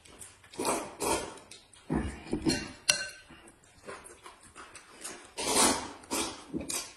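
Noodles being slurped with chopsticks in a string of short, noisy bursts, the loudest a little past halfway, along with chewing. A single sharp clink of tableware comes about three seconds in.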